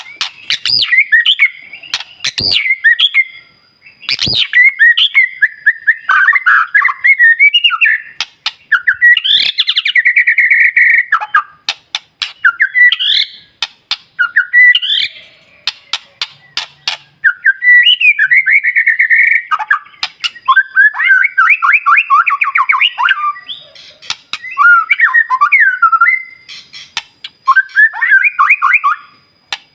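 White-rumped shama (murai batu) singing in full song: phrase after phrase of varied whistled and warbled notes mixed with sharp clicks and harsh chattering, with short pauses between phrases.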